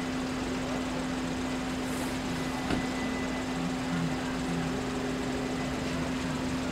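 Belgian level crossing warning bell sounding a steady electronic tone while the barriers are down, over a constant background hiss.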